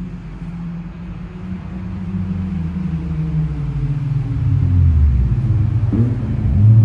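Car engine revving hard and growing louder over several seconds: a road racer speeding along the road.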